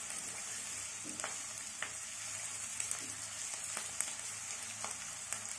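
Chopped onions deep-frying in hot vegetable oil in a kadai over a high flame, browning into beresta (crisp fried onions): a steady sizzle with a few faint clicks.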